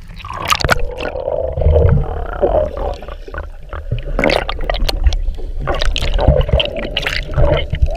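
Muffled underwater water noise as the camera goes under: gurgling and bubbling, with uneven knocks and a low rumble of water moving against the camera.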